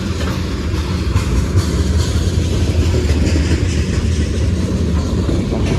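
Long freight train rolling slowly past, a steady low rumble with the wheels clicking over the rail joints.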